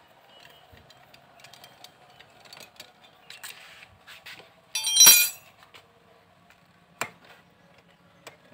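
Hand tools and small metal parts clicking and clinking while a scooter's throttle body is unbolted. About five seconds in comes a louder, ringing metallic jangle, and about two seconds later a single sharp click.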